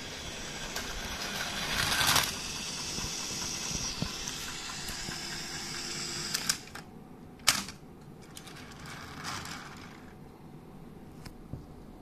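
Plarail battery-powered toy train running on plastic track: a steady motor whir and wheel rattle that swells about two seconds in, then stops about six and a half seconds in. Two sharp plastic clicks follow as the toy train is handled on the station track piece.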